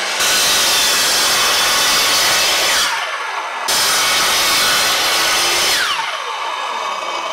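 Sliding chop saw (mitre saw) ripping a tropical hardwood board lengthways: the motor runs and the blade cuts loudly, eases off briefly about three seconds in and then bites again. Near the end the blade is released and winds down with a falling whine.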